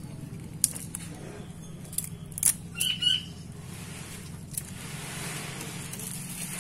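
A bird gives two short, high chirps about three seconds in, over a steady low hum, with a few sharp clicks scattered through.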